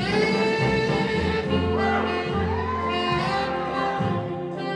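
Jazzy instrumental music with horns; a new phrase comes in sharply at the start, with sliding notes in the middle.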